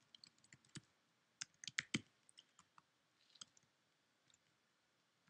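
Faint computer keyboard keystrokes: irregular clicks with a quick run about a second and a half in, then a few scattered strokes that stop about halfway through.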